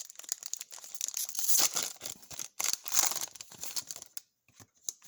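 Crinkly plastic wrapper of a sports-card pack being torn open and crumpled, in irregular crackling bursts that fall quiet for a moment near the end.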